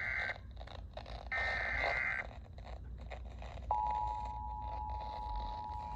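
Emergency Alert System SAME header: two data bursts of warbling digital tones, each about a second long and a second apart, marking the start of a new alert. About two-thirds of the way in, the steady two-tone EAS attention signal begins and holds.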